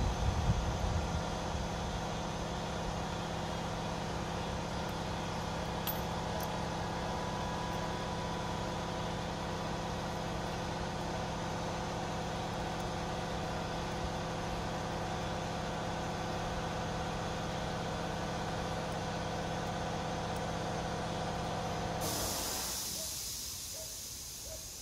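A steady machine hum with several steady tones that stops abruptly about 22 seconds in. A hiss follows and fades away.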